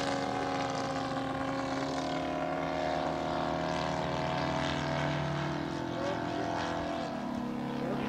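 Engines of two large radio-controlled scale biplanes, a Stearman PT17 and an Udet Flamingo with a home-built radial engine, running steadily in flight overhead. Their tones drift slowly in pitch as the planes circle.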